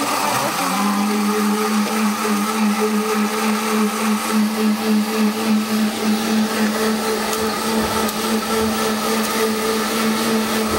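Commercial drink blender starting up under a second in, then running at a steady, even pitch.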